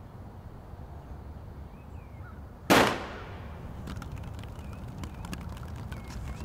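A single sharp, loud bang about two and a half seconds in, followed by a scatter of light knocks as apples drop and bounce on a concrete sidewalk.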